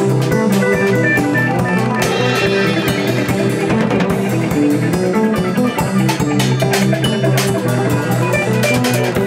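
A band playing an improvised instrumental jam: plucked guitar notes over drums and percussion, with many short bright notes.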